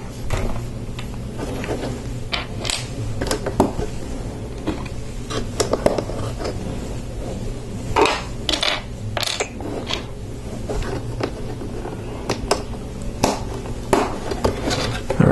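Lego plastic bricks being handled and pressed together: irregular sharp clicks and light clatters, spaced unevenly through the whole stretch.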